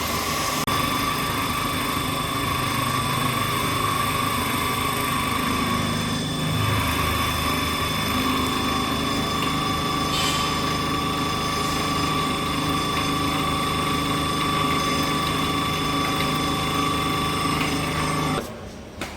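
CNC plate drilling machine milling, its spindle running with a steady high whine and several fixed tones over a low machine rumble; the sound cuts off sharply near the end.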